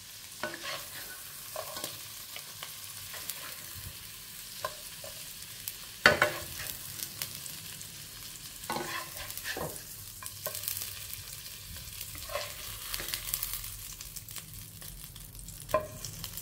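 Oil sizzling in a wok as fried shrimp are scooped out with a ladle onto a plate, with scattered clicks and knocks of the ladle against the wok and the plate. The loudest knock comes about six seconds in.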